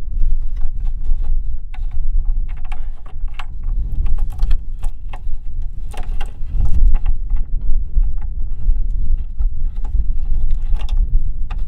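Small clicks, taps and scrapes of a conduit fitting being worked by hand into a knockout hole in a sheet-metal electrical box. Under them runs a steady low rumble.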